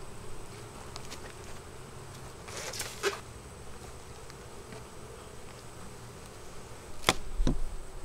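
Honeybees buzzing in a steady hum from an opened hive; the colony is agitated. A short puff from a bee smoker comes about three seconds in, and near the end two sharp knocks as the wooden inner cover is pried up.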